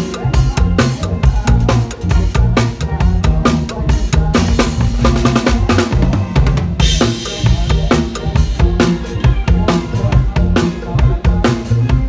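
Instrumental Thai lam ploen band music: a drum kit keeps a steady, driving beat of bass drum and snare over a heavy bass line. About seven seconds in there is a brief swell of bright hissing noise.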